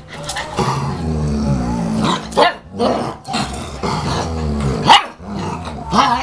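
German Shepherd puppy and its mother growling in play-fighting, with long rumbling growls broken by a few sharp barks, the loudest about five seconds in.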